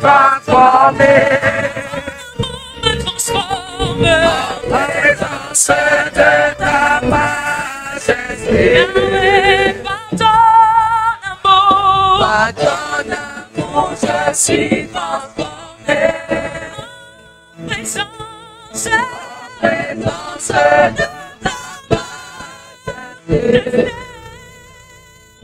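Live gospel worship singing: a woman leads into a microphone, holding notes with vibrato, while the congregation sings along, with a few sharp percussive hits now and then.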